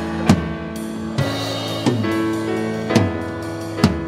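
Instrumental music from a church band: held chords under drum-kit hits about once a second.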